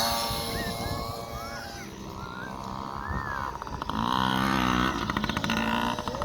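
Small 50cc pee-wee dirt bike engines revving up and down as the kids race around the track, louder between about four and six seconds in.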